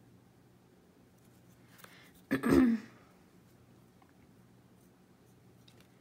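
One short, loud vocal noise from the painter about two and a half seconds in, a non-speech throat sound rather than words, over a faint steady room hum.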